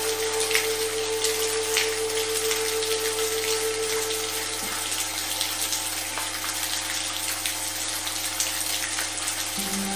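Steady rain with scattered drop ticks, under sustained electronic drone tones of a sound-therapy frequency track. One of the tones drops out about halfway through, and a new, lower set of tones comes in near the end.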